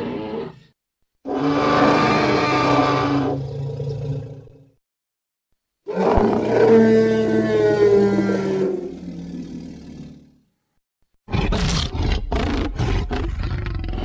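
Custom Tyrannosaurus rex sound effects: the end of one roar, then two long, deep roars of about three and four seconds, the second sliding slightly down in pitch. Near the end comes a rapid run of about seven short, choppy calls.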